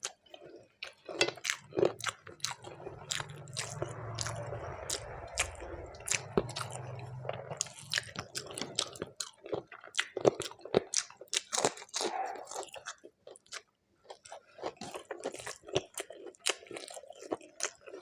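A person eating close to the microphone, chewing and crunching mouthfuls of food with many short wet clicks. A low steady hum runs underneath for a few seconds in the first half.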